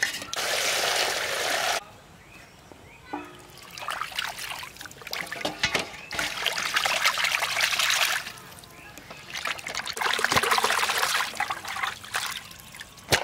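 Water poured and splashing over cut pangasius fish pieces in a metal pot in three bouts, as the fish is washed, with knocks and clatter of fish and metal vessels between the pours.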